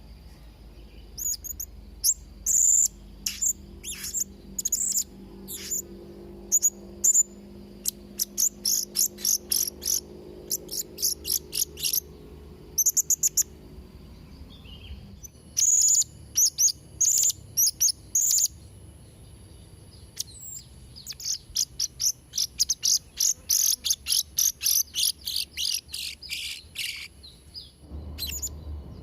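Blue-crowned hanging parrot (serindit) calling: shrill, high-pitched chips given in quick runs, with longer rapid strings of notes about a third of the way in and again in the last third.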